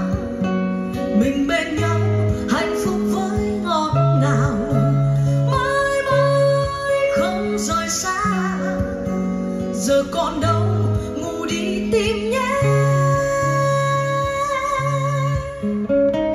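A recorded pop ballad playing back through a Luxman L-540 integrated amplifier and loudspeakers: plucked guitar over a stepping bass line, with a wavering melody line.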